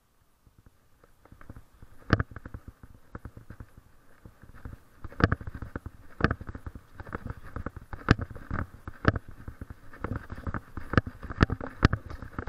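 Walking sounds on a concrete sidewalk: irregular sharp clicks and knocks, a few of them much louder than the rest, with a faint steady hiss beneath. They begin about a second in, after near silence.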